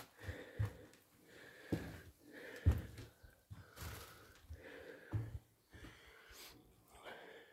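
A person breathing audibly while walking, with irregular low knocks of footsteps on a debris-covered floor.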